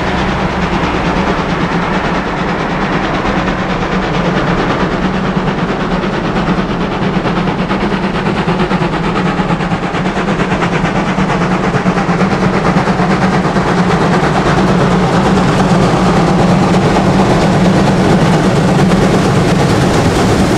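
German class 01 two-cylinder steam locomotive 01 066 working hard up a steep gradient, its exhaust beating in a fast, steady rhythm. It grows louder as it approaches.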